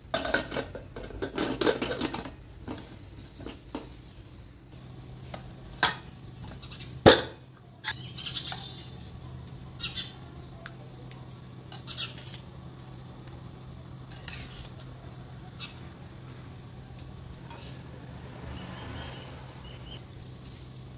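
Metal kitchenware clattering: a steel ladle knocking and scraping in an aluminium pressure cooker of dal. A dense run of clinks comes in the first couple of seconds, then one loud clank about seven seconds in, then occasional light clicks.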